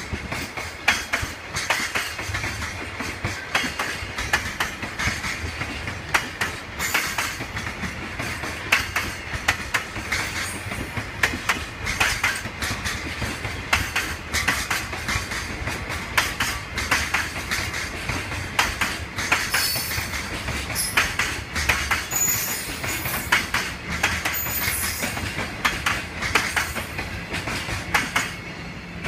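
JR Freight Koki container wagons rolling past as the freight train pulls out of the yard: wheels clacking and knocking over rail joints and points in a steady stream, with a few high wheel squeals about two thirds of the way through. The noise eases slightly near the end as the last wagons go by.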